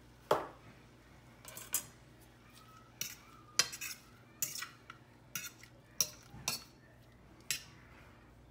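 A metal fork clinking against a stainless-steel skillet while raw shrimp are moved around the pan: about ten sharp, uneven clinks.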